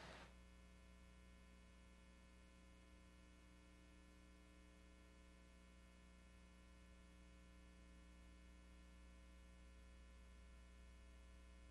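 Near silence with a faint, steady electrical mains hum, a buzz of many even overtones, from the sound system.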